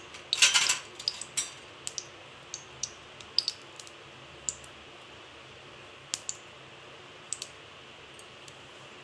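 Cooking oil heating in a kadai, crackling with scattered sharp pops over a faint steady hiss, with a louder cluster of pops about half a second in.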